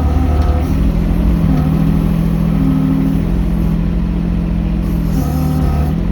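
An engine running steadily, with small shifts in its pitch about a second and a half in and again near the end.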